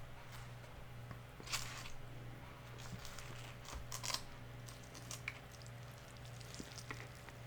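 Close chewing and crunching of a fried chicken flauta, with two louder crunches about a second and a half and four seconds in, over a steady low hum.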